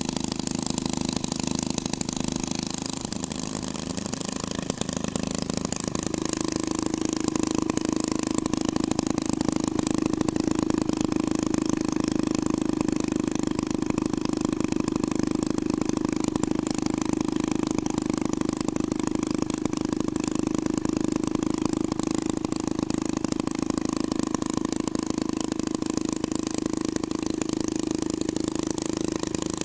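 Twin-engine hot rod running steadily. Its note wavers briefly a few seconds in, then settles into an even, slightly louder run.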